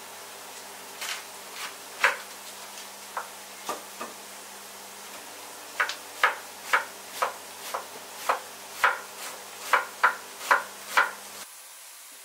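Chef's knife slicing through a cabbage onto a wooden cutting board: a few scattered cuts, then a steady run of about a dozen chops, roughly two a second, that stops about eleven seconds in.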